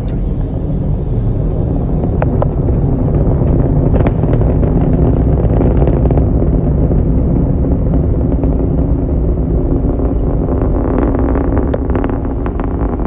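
Engines of a distant rocket climbing after launch, heard as a loud, steady low rumble, with a crackle coming in about ten seconds in.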